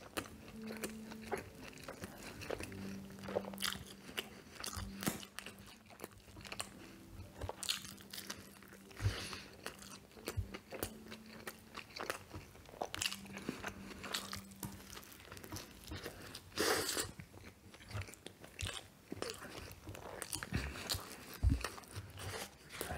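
Close-up chewing of a Double Big Mac dressed with extra Big Mac sauce: wet mouth smacks and many quick clicks from the chewing. A low hum comes and goes underneath.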